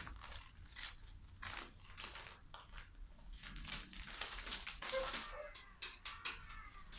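American Hairless Terrier puppies moving about on newspaper and a fleecy mat: scattered light rustling and crinkling with small clicks. Two brief faint squeaks about five seconds in.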